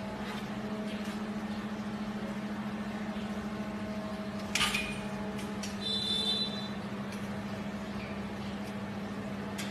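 A steady low electrical or motor hum, with a sharp knock about four and a half seconds in and a brief high squeak about a second later.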